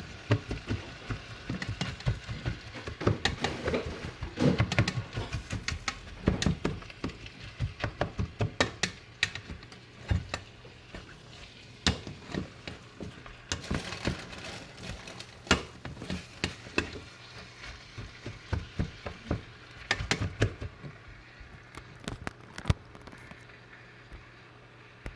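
Food frying in hot oil: irregular crackles and pops over a light sizzle, dense at first and thinning out toward the end, with a steady low hum underneath.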